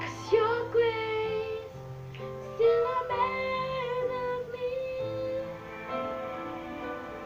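Music: a female voice singing a Christian worship song over held instrumental chords.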